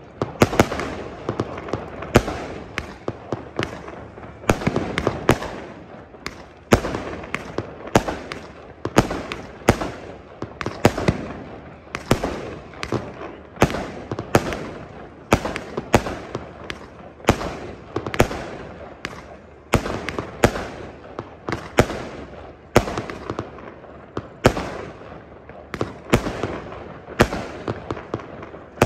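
Firework display: aerial shells bursting in a steady run of sharp bangs, about one to two a second, each trailing off in an echo that fills the gaps between them.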